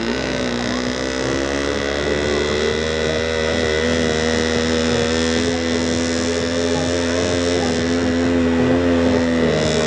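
Small home-built tractor's engine running hard at high, fairly steady revs as it drives. Its pitch shifts down just before the end.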